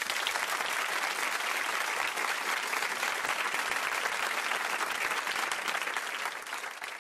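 Audience applause: dense clapping from many hands, cutting in abruptly and holding steady.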